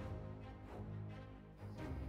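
Intro theme music playing softly, with low sustained notes.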